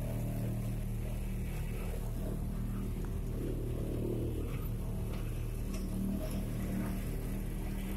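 Steady hum of engines in slow-moving road traffic.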